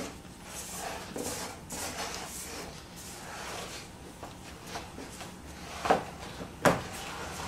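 Hands working buttery graham cracker crumbs around a metal springform pan: a soft, gritty rustling, with two sharp knocks near the end.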